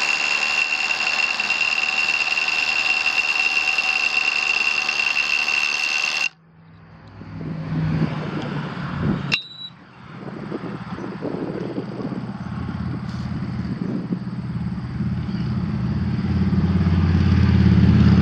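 Kobalt 24V cordless SDS Plus rotary hammer hammer-drilling into a concrete block with a 1-inch masonry bit in a keyed drill chuck on an SDS adapter, a loud steady running with a high whine that cuts off suddenly about six seconds in. A sharp click follows, then a lower rumble that builds toward the end. The hammering vibration shakes the bit loose and out of the chuck adapter.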